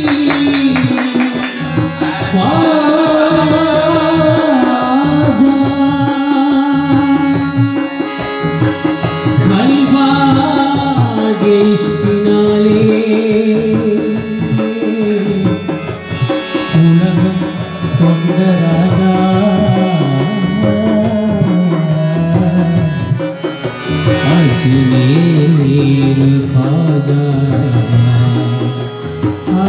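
Music: a song with a singing voice holding long, bending notes over a tabla-style hand-drum rhythm.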